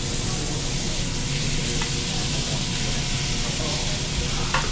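Thick block of Kobe beef sizzling on a hot teppanyaki steel griddle, a steady frying hiss. The metal spatula clicks sharply against the plate about two seconds in and again near the end.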